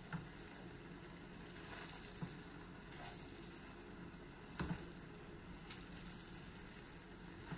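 Faint stirring of cooked rice in a stainless steel pan with a spatula: soft squishing and scraping, with a few light knocks, the clearest about four and a half seconds in.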